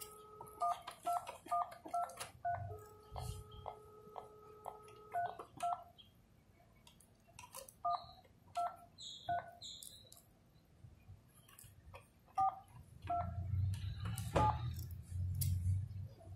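Intelbras TI 830i telephone terminal beeping its keypad tones through the speakerphone as a PABX programming code is keyed in: a series of short beeps, one per key press, with a steady line tone in between, broken by the presses. The code sets a new master password for the exchange.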